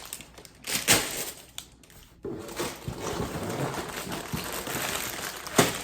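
Crinkling of plastic bags of LEGO pieces being handled, with a sharp clack about a second in and another near the end.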